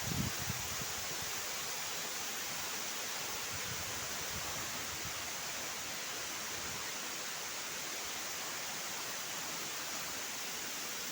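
Waterfall: a steady, even rush of falling water, with a few low bumps in the first half second.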